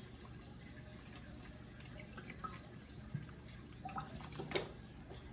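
Faint dripping and splashing of water as a plastic fish-shipping bag is rinsed off by hand in a bucket of water, with a few louder splashes about four seconds in.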